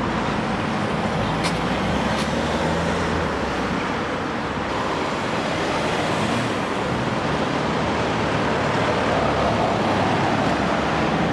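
Steady road traffic: cars running past, with a vehicle's low engine hum under the tyre noise.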